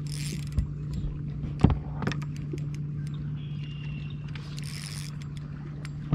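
Steady low electric hum of a bass boat's bow-mounted trolling motor, with scattered clicks and knocks from the rod and gear on the boat, the sharpest about a second and a half in. Two short bursts of hiss come at the start and again about four and a half seconds in.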